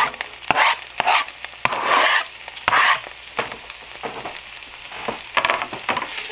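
Sliced red onions dropping into hot butter and olive oil in a pan, sizzling in loud surges as they land, with a few sharp clicks. After about three seconds the sizzle settles to a quieter steady fizz.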